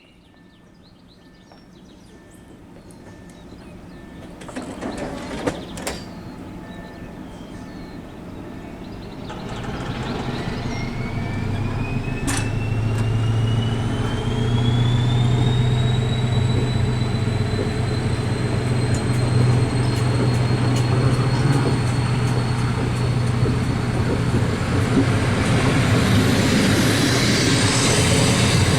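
SU42 diesel-electric locomotive pulling a passenger train away from the station, its engine growing steadily louder. From about ten seconds in, a whine rises in pitch as it accelerates, then holds steady over a deep hum. A few sharp knocks come about five seconds in.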